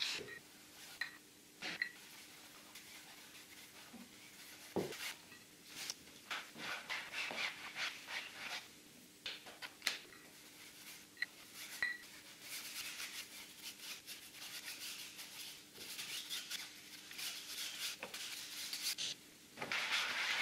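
Scattered clicks and taps of paint tubes and tools handled on a hard surface, then long stretches of scratchy rubbing as a cloth is wiped across the paint on a flat painting board, heaviest in the second half and again near the end.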